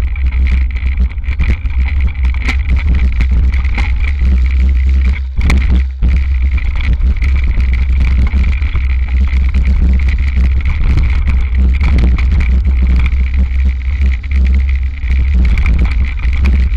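Hardtail mountain bike rolling fast down a rough dirt trail, heard from a handlebar-mounted camera: heavy wind and vibration rumble on the microphone with constant clicking and rattling from the bike over the ground, easing briefly about five seconds in.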